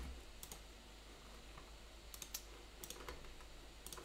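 Faint, sparse clicks of a computer keyboard and mouse, in a few short clusters, as code is copied and pasted.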